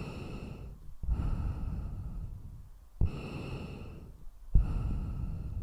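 Heavy, rasping breathing through an oxygen mask: four slow breaths, each starting with a sharp puff and fading over a second or so.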